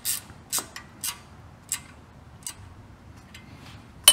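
Small ratchet wrench clicking in separate sharp ticks, about every half second at first and then fainter and sparser, as 10 mm bolts on the injector fuel lines are snugged down. One sharper metal click right at the end.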